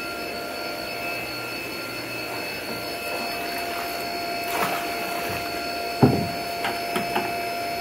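Steady hum and constant whine of an aeration blower feeding air lines into the fish tanks, with the aerated water churning. A bucket knocks sharply about six seconds in, followed by a few lighter clicks.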